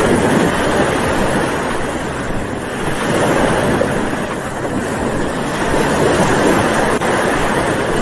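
Sound-effect recording of ocean surf: a steady rushing wash of waves that swells and eases slightly.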